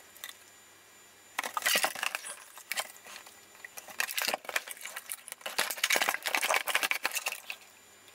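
Metal clinks, knocks and rattles as the sheet-metal chassis of an avionics compass computer is handled and turned over by hand. They start about a second and a half in and come irregularly.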